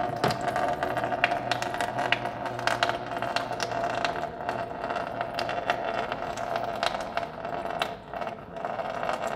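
Old engine coolant draining in a thin stream from the radiator drain plug into a plastic drain bucket: a steady splashing with many small crackling drips.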